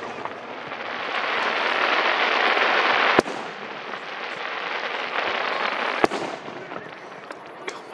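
Aerial fireworks shells bursting: two sharp booms about three seconds apart, the first after a dense hiss that builds for about two seconds.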